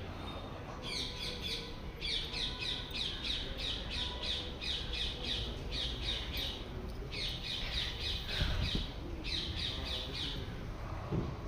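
Birds calling in quick runs of short, high notes, several runs with short pauses between them.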